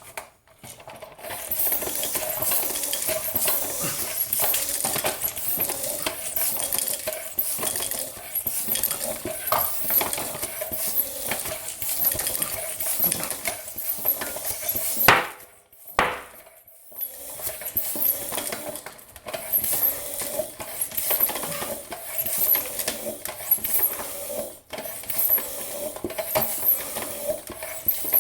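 Floor pump being worked stroke after stroke, air hissing into a tubeless mountain-bike tire with a wetted bead. About halfway through, a couple of sharp pops as the tire bead snaps onto the rim, then pumping carries on.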